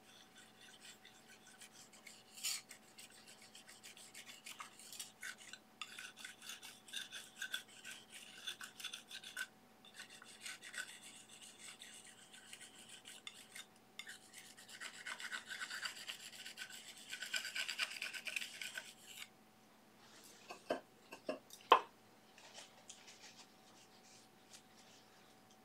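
Stiff hog-bristle filbert brush scrubbing and stroking oil paint across a smooth gesso-primed aluminium panel: a run of short, scratchy strokes, busiest a little past the middle. A few sharp taps near the end.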